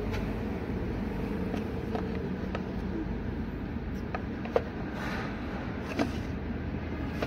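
A knife cutting through soft homemade jelly and tapping the plate beneath, a few sharp clicks, the clearest about four and a half and six seconds in, over a steady low background rumble.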